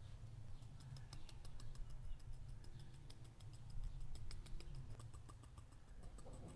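Faint, rapid high ticking, several fine ticks a second.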